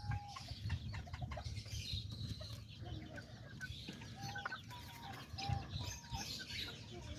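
Small bantam (kikiriki) chickens clucking softly, with a few short calls held at one pitch in the second half.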